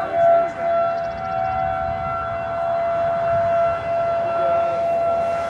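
Outdoor tornado warning siren sounding a steady, sustained wail on one held pitch, with wind noise on the microphone underneath.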